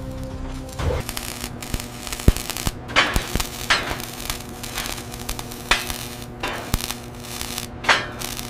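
Electric arc welding on steel: a crackling, spitting hiss over a steady electric hum, starting about a second in, with a few sharp snaps.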